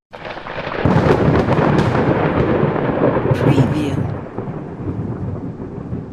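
A thunder clap starts suddenly, builds to a loud crackling peak about a second in, and rolls on into a deep rumble that fades over the last couple of seconds.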